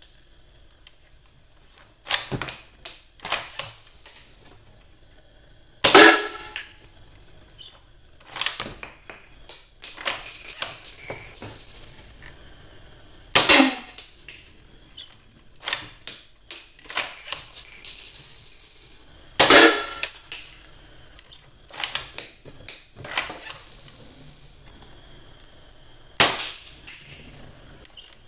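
Toy Cheytac M200 dart sniper rifle firing four times, about every six to seven seconds, each shot a sharp, loud pop. Between shots come clusters of mechanical clicks and clacks as the bolt is worked to cock and load the next dart.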